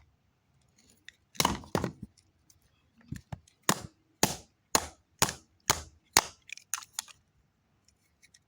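Hand tool whacking a plastic remote control: a series of about a dozen sharp cracking strikes, roughly two a second, starting about a second and a half in and stopping about seven seconds in.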